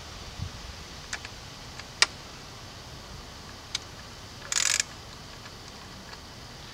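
A few sharp single clicks from a Ravin R9 crossbow being handled after it has been de-cocked, the loudest about two seconds in. A short scraping rattle follows about two-thirds of the way through.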